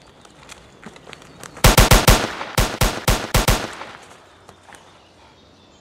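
Automatic gunfire: three short, rapid bursts of loud sharp shots, packed into about two seconds and starting a little under two seconds in.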